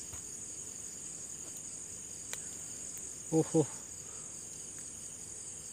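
A steady, high-pitched chorus of night insects in the background, with a brief word or two of a man's voice about three and a half seconds in.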